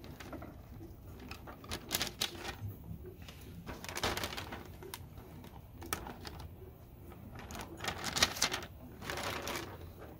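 Scattered light clicks and snaps with rustling of the sail fabric as hands pull rubber bands off the wingtip fittings of an R/C flying wing. The rustling is thickest about four seconds in and again near the end.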